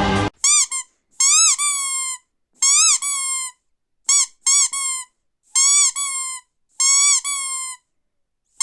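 A series of about seven high-pitched squeaks with short silent gaps, each rising and falling in pitch, some with a second, longer squeak sliding down after the first.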